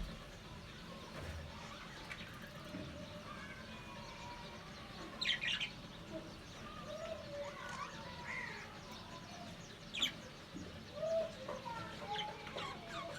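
Budgerigars chattering softly in a low warble, broken by a few short, sharp chirps about five and ten seconds in.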